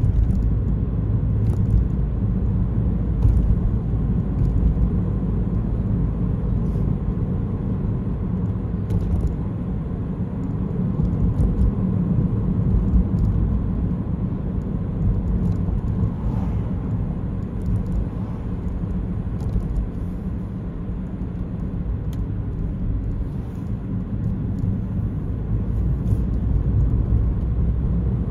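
Steady low rumble of a car driving along a city street: tyre and engine noise at a cruising pace, easing off slightly in places.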